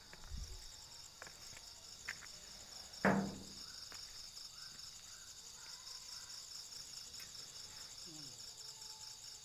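Steady, finely pulsing high-pitched insect trill, cricket-like, though the listeners doubt it is a cricket. A single loud knock about three seconds in.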